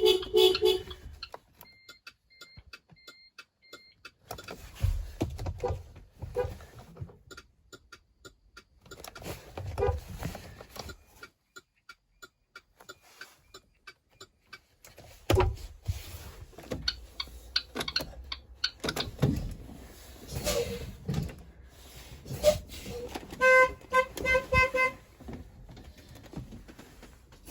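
School bus horn sounding in several short honks near the end, with a brief honk right at the start. Between them come a run of high, evenly spaced beeps, scattered clicks and low knocks.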